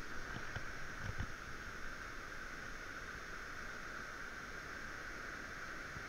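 Steady rush of flowing river water, with a few low thumps in the first second or so.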